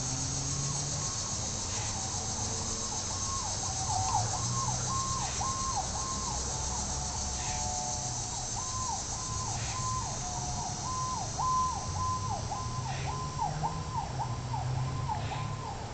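Emergency-vehicle siren in a fast up-and-down yelp, rising and falling about twice a second. It starts about three seconds in, breaks off briefly around the middle and then carries on, over a steady high hiss.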